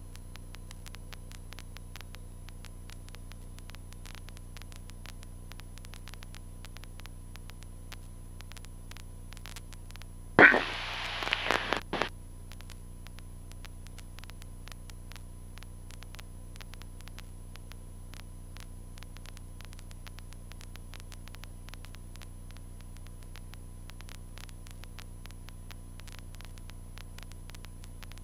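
Steady hiss and hum on a light aircraft's radio and intercom audio feed, with the engine kept out by the feed. About ten seconds in there is one loud, crackling burst of static lasting about a second and a half.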